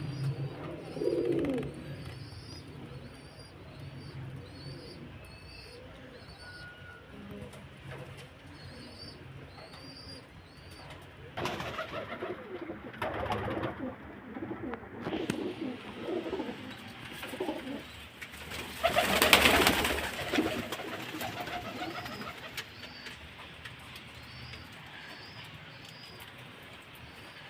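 Domestic pigeons cooing, with small birds chirping repeatedly in the background; a louder burst of rustling noise comes about two-thirds through.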